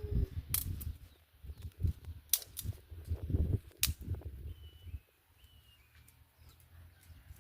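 Several sharp snaps or cracks over a low rumbling noise that stops about five seconds in, followed by a few faint, short high chirps.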